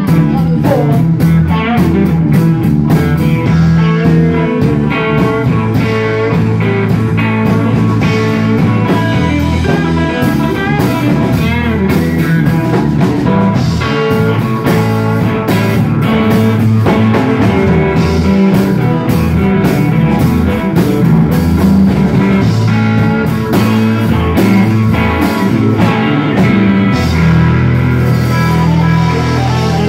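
Live blues band playing: electric guitars over bass guitar and a drum kit.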